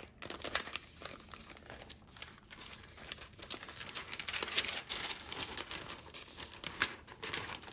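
Thin clear plastic cover sheets and their plastic packet crinkling as they are handled, with irregular crackles.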